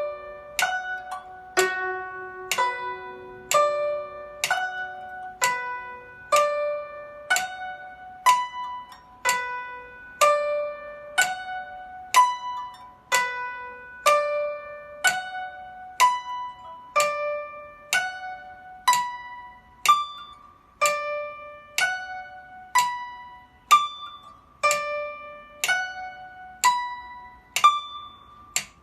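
Guzheng plucked in slow broken chords, about one note a second, each chord's tones sounded one after another and let ring. The pattern moves through the chord's inversions.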